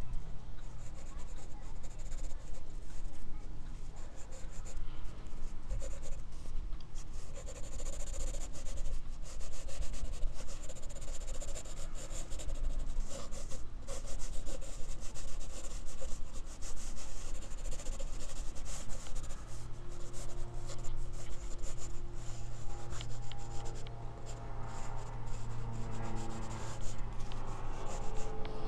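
Graphite pencil scratching and rubbing on drawing paper in quick, irregular sketching and shading strokes.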